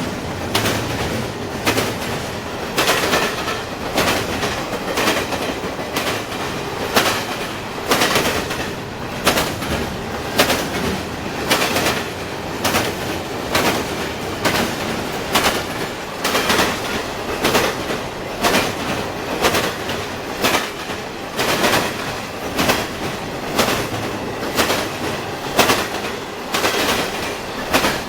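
Railcars of a long train rolling past, their wheels banging over the gaps of a rail diamond crossing in a steady clickety-clack, one or two knocks a second, over a continuous rumble.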